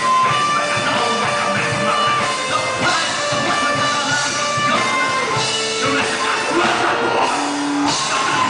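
Live rock band playing: electric guitars, bass and drum kit, with a guitar melody of held notes over the drums.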